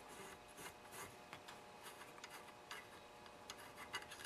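Faint, scattered small metallic clicks and ticks as a carburetor's emulsion tube (center jet) is worked loose with a 7 mm wrench and unscrewed by hand, the sharpest click near the end.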